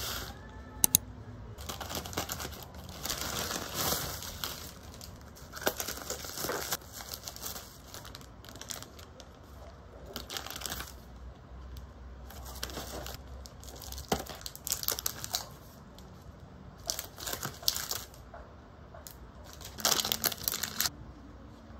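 Thin plastic packaging crinkling and rustling in irregular bursts as parcels are opened by hand: a plastic courier mailer, bubble wrap and plastic bags. Two sharp clicks about a second in.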